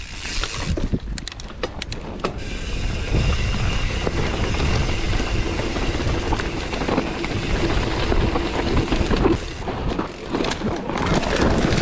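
Mountain bike riding down a rough dirt trail: tyres running over dirt and leaves, with the chain and frame rattling and sharp knocks from the bumps. Wind rumbles heavily on the rider's action-camera microphone.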